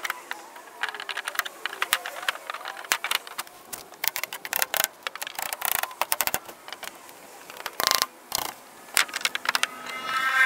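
Sped-up demolition work on a wooden shed floor: a fast, irregular clatter of clicks and knocks from the plywood sheets and tools, with a short high squeal near the end.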